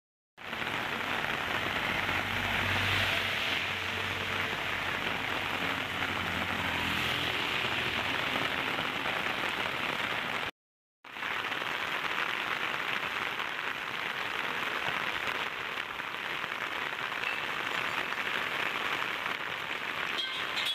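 Heavy rain falling steadily on a paved street, a dense even hiss. A truck passes in the first several seconds, adding a low rumble. The sound cuts out completely for a moment at the start and again about halfway through.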